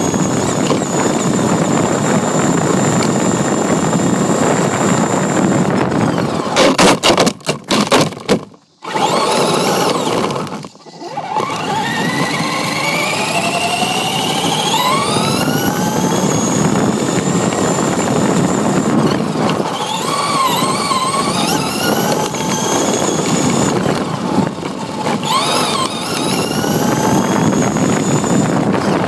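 Radio-controlled truck driving over pavement, heard from a camera mounted on it: a steady rough rumble of tyres and drivetrain, with the motor's whine gliding up and down in pitch as it speeds up and slows. About seven to nine seconds in there is a brief clatter of knocks, and the sound cuts out briefly twice.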